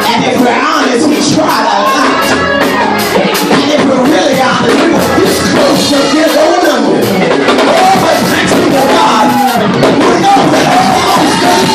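Loud gospel praise-break music: a fast, driving percussive beat of about four or five strokes a second, with voices singing and shouting over it and a congregation joining in.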